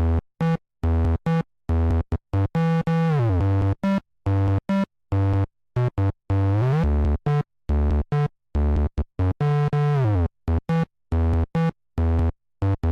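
Electronic synthesizer music, low buzzy notes cut into short stuttering chunks with abrupt silent gaps between them. Pitch slides downward about three seconds in and again near the end, and upward about halfway through.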